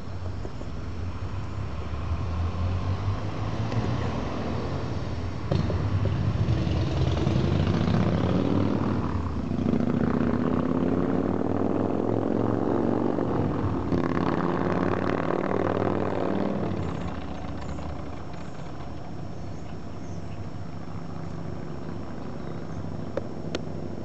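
A motor vehicle passing by. Its engine and road noise swell, the engine pitch sweeps as it goes past, and the sound fades away about two-thirds of the way through.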